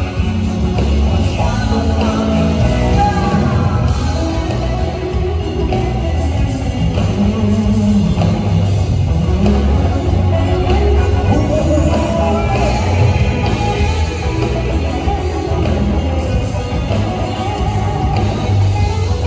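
Live rock band playing a song with a singer: drum kit, electric guitar and bass guitar, heard through the stage PA.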